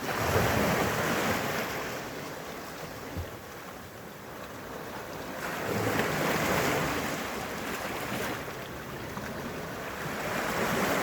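Sea waves washing onto a rocky shore, the surf swelling and easing back in slow surges about every five to six seconds.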